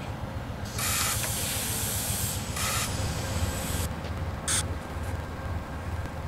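Compressed air hissing from an Amtrak passenger train's air brakes in three bursts: two of about a second and a half each, then a short one, over a low steady rumble.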